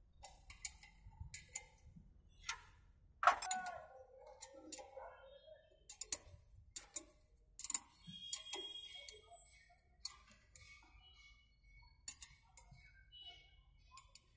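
Irregular sharp metallic clicks and taps of a spanner working the bolts of a Chevrolet Enjoy's front brake caliper, as the caliper is bolted back over new pads.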